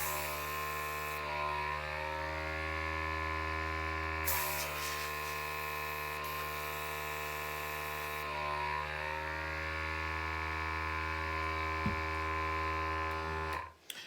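Small electric air compressor motor running with a steady buzzing hum, with two long bursts of hissing air from an air gun blowing paint across a canvas. The motor shuts off suddenly near the end.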